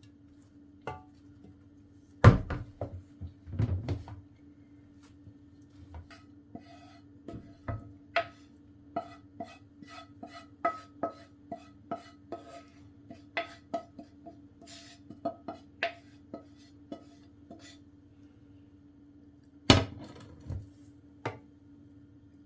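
Cutlery and dishes clinking: a run of light clinks and taps, with a few louder knocks near the start and again near the end, over a steady low hum.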